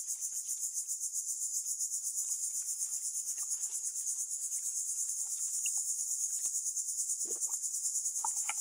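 A steady, high-pitched insect trill, pulsing rapidly. Under it, faint wet slaps and rustles of live catfish being scooped from a plastic crate with a strainer basket, with a few louder knocks near the end.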